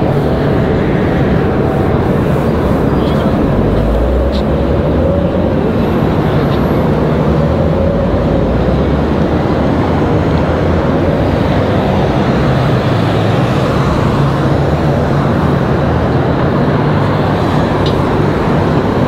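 Steady street traffic noise, with car engines running and cars passing.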